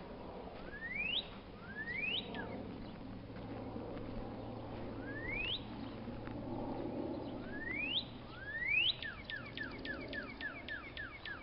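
Songbird singing: a few loud, clear whistles that slur sharply upward, spaced irregularly, then near the end a fast run of short falling notes, about eight to ten a second.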